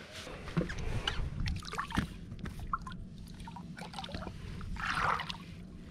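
Water splashing and sloshing as a hooked snook thrashes at the side of the boat and is grabbed by the lip, with irregular small knocks and a louder splash near the end.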